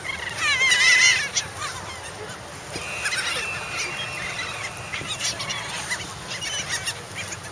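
A flock of seagulls calling over one another in a dense, overlapping chorus of wavering squawks, loudest about a second in, as they crowd in for food.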